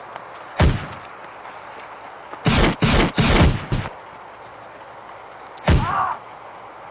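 Gunshots: a single shot, then a rapid burst of about five over a second and a half, then one more shot.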